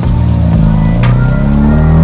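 Loud music with a steady low bass line and sharp hits about two seconds apart.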